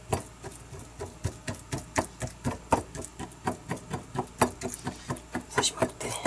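A metal fork repeatedly stabbed into raw chicken breast, its tines clicking against the plastic cutting board underneath at about three or four strokes a second. The meat is being pricked all over so the seasoning soaks in.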